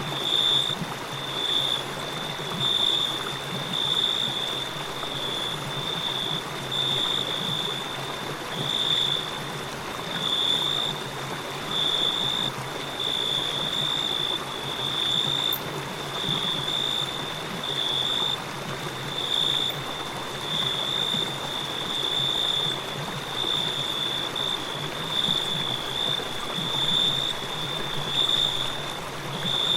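Crickets chirping in a high, pulsing trill about once a second, over the steady rushing of a river.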